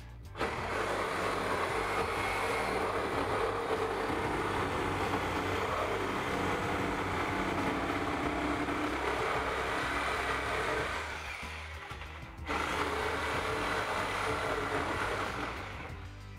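Corded reciprocating saw cutting through the wooden nosing of a stair tread. There is one long cut of about ten seconds, a brief drop, then a second cut that tapers off near the end.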